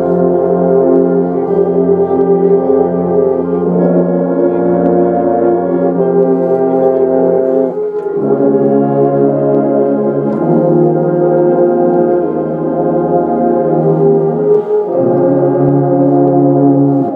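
Marching band brass playing slow, sustained chords, moving to a new chord every few seconds.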